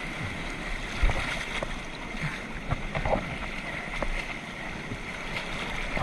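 Whitewater rushing and churning past an inflatable raft against a rock wall, with a few short dull knocks.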